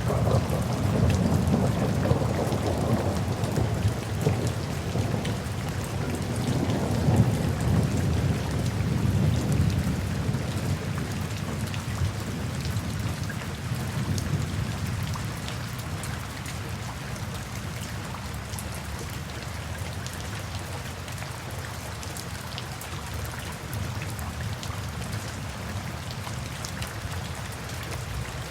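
Steady rain falling, with scattered drop taps. A long, low roll of thunder is loudest in the first few seconds and fades away about halfway through, leaving the rain alone.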